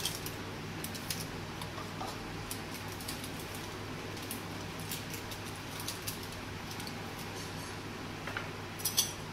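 Mustard oil heating in an aluminium kadai over a gas burner: a steady low hiss with scattered faint ticks, and a short cluster of sharper clicks near the end.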